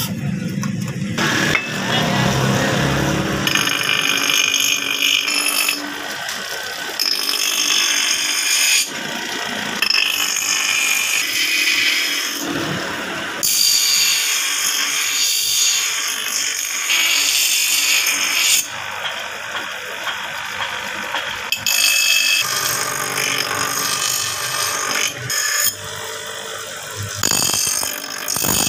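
A power tool working steel in repeated passes a few seconds long, each starting and stopping abruptly.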